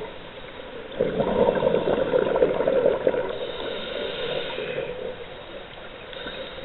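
Scuba regulator breathing, heard underwater through the camera housing: a burst of exhaled bubbles starts about a second in and runs for about two seconds, followed by the fainter hiss of an inhale.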